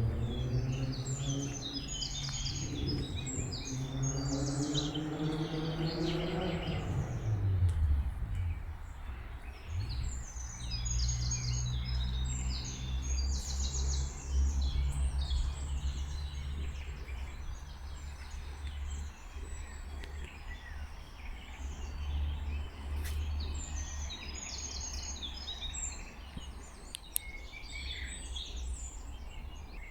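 Several songbirds singing and chirping, many short phrases overlapping. Under them a low humming drone with overtones drops in pitch about seven seconds in and fades to a low rumble.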